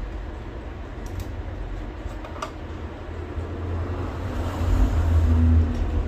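Steady low rumble that grows louder about four seconds in, with a few faint clicks.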